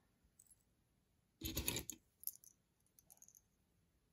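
Small costume jewelry pieces being handled. There is one short clatter about a second and a half in, followed by a few light clicks.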